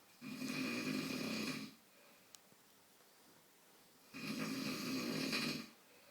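A man snoring in his sleep: two long snores about four seconds apart, each lasting about a second and a half, with a faint tick between them.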